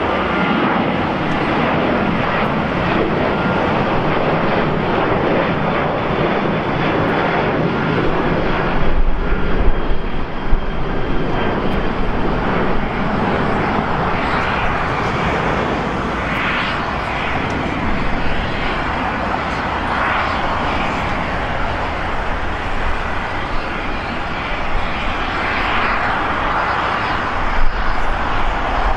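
Jet airliner engines running at an airport: a steady, loud rush of jet noise with a few brief swells.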